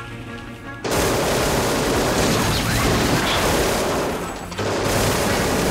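Car engine revved hard as the accelerator is floored, starting suddenly about a second in, with the wheels spinning in snow as the car pulls away; the noise dips briefly and surges again near the end.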